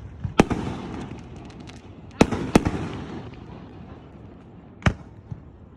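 Fireworks going off: four loud sharp bangs about a second and a half to two and a half seconds apart, each trailing off in a rumbling echo, with lighter crackles in the first couple of seconds.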